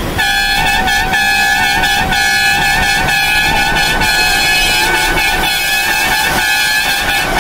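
Truck air horn sounding one long, steady blast, a chord of several high tones with a slight wobble in pitch.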